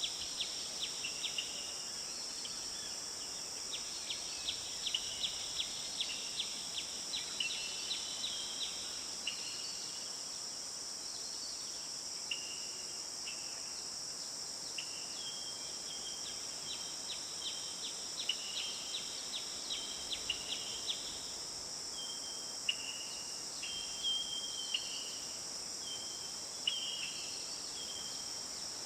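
Forest ambience: a steady high-pitched insect chorus, with birds giving repeated short chirps and quick trills over it.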